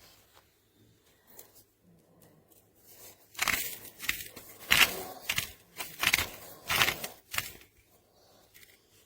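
Wooden salt mill being twisted by hand: a run of about seven rough grinding, scraping strokes, starting about three seconds in and stopping near the end.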